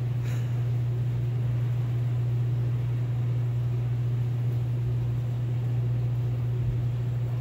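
Steady low hum of an idling vehicle engine.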